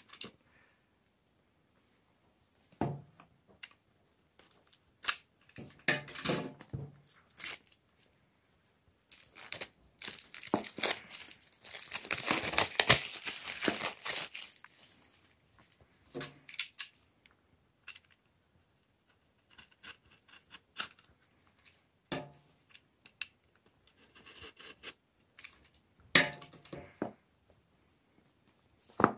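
Clear plastic shrink wrap being slit with a utility knife and torn and crumpled off a phone's cardboard box: scattered rustles and crackles, with a longer spell of crinkling about ten to fourteen seconds in.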